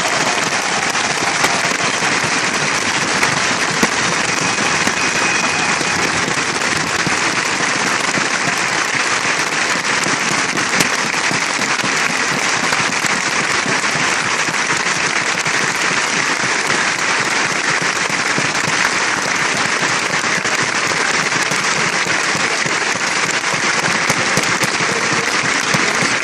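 Steady, dense applause from a large crowd, a continuous wash of clapping.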